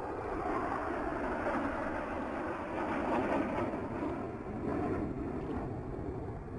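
Jet engine noise from display jets flying past, a steady rush that swells to a peak about three seconds in and then eases off.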